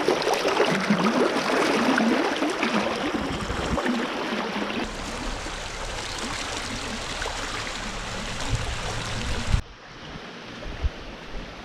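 A brook running over rocks: a steady wash of water noise. Near the end it cuts off abruptly, giving way to a quieter, duller hiss with a few low thumps.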